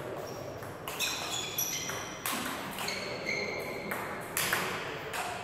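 Table tennis rally: the ball clicking off the bats and the table in a quick series of sharp hits, several with a short high ping.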